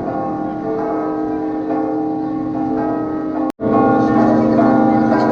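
Large church bells ringing together, several bells at once with their overlapping tones hanging on between strikes. The sound drops out for an instant about three and a half seconds in, then the ringing comes back a little louder.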